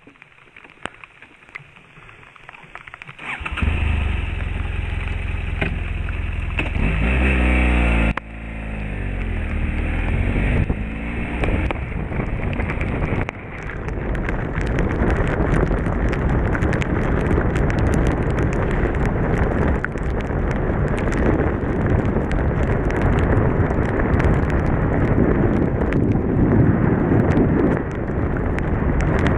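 BMW motorcycle riding on a wet road in rain: the engine comes in a few seconds in and pulls through the gears with rising and falling pitch, then gives way mostly to wind rush and tyre hiss on wet tarmac, with raindrops ticking on the microphone.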